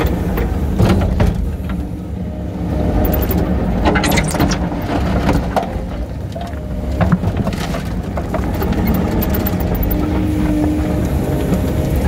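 Kubota SVL95 compact track loader's diesel engine running steadily under load, with several sharp clanks and knocks from the bucket and material while loading a dump truck.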